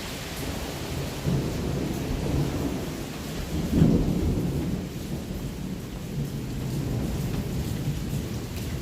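Steady rain with low rolling rumbles of thunder swelling through it, the strongest a little under four seconds in.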